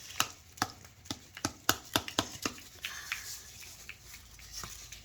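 A run of sharp clicks and taps from hands working with paper and cardboard. There are about ten quick ones in the first two and a half seconds, then a few more spread out.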